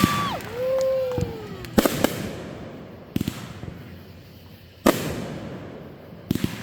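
Fireworks bursting: a loud bang almost two seconds in, a softer one about a second later, another loud bang near five seconds, and a quick cluster of cracks near the end, each trailing off in echo.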